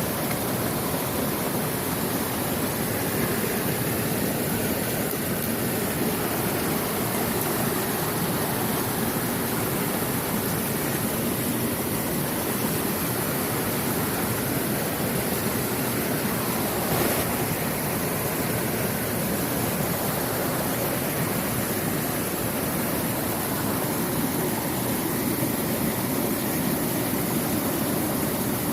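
Mountain stream rushing steadily, a constant noisy wash of running water.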